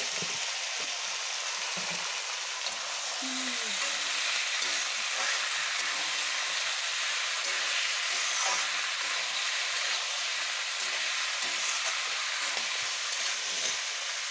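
Raw meat pieces sizzling steadily in hot oil in an aluminium wok, with occasional scrapes of a spatula stirring them around the pan.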